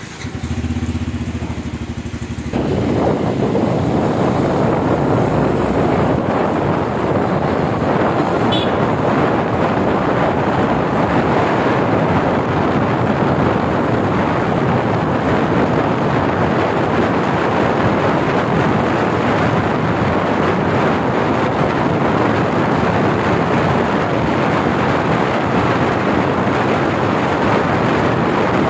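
Loud steady rushing noise of travelling along a wet road in the rain, setting in suddenly about two and a half seconds in after a quieter low hum.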